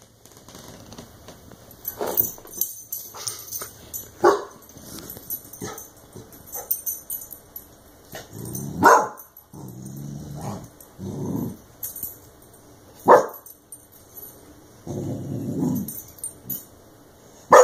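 Clumber Spaniel puppy barking and growling at a compressed air can it has learned to dislike after being sprayed with it: a handful of sharp barks spread through, with low drawn-out growls between them.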